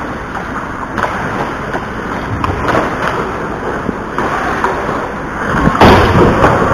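Ice hockey rink noise: skate blades scraping the ice and scattered sharp clicks of sticks and puck, with a louder scraping rush about six seconds in.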